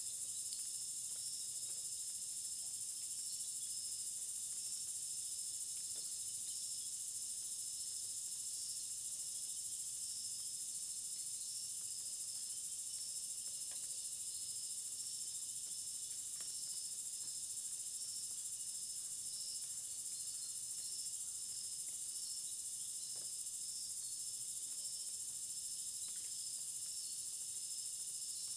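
Steady high-pitched chorus of insects calling outdoors: a continuous drone with a faster pulsing trill just beneath it.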